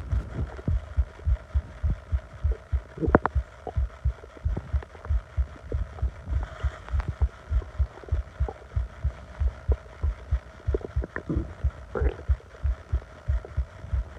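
Upset stomach heard close up: a steady low thumping pulse, about four thumps a second, with the stomach gurgling a few times, about three seconds in, around the middle and near the end.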